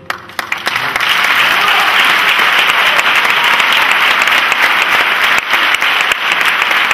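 Audience applauding: a few scattered claps that swell within about a second into loud, steady applause.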